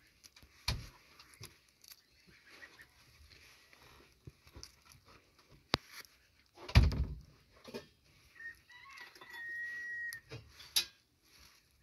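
Small clicks and crackles of eggshell and membrane being picked away by fingers from a hatching Muscovy duckling, with a louder handling bump about seven seconds in. A duckling's thin, steady peep is heard for about a second and a half past the middle.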